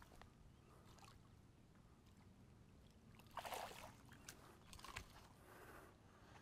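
Near silence with a low, steady wind rumble on the microphone, broken by a short noisy burst about three and a half seconds in and a smaller one about five seconds in.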